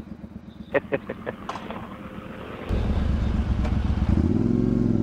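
Motorcycle engine ticking over with a few light clicks. About three seconds in it gets suddenly louder, and from about four seconds it runs steadily at higher revs.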